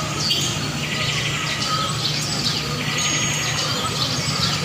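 Birds chirping in a busy, overlapping run of quick high rising and falling calls, over a steady low hum of city traffic.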